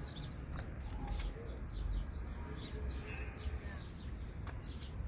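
Small birds chirping over and over, several short chirps a second, over a steady low background rumble.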